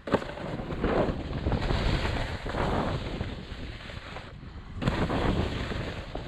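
Skis scraping and swishing over snow on a downhill run, the hiss swelling and fading several times, with wind rushing over the microphone.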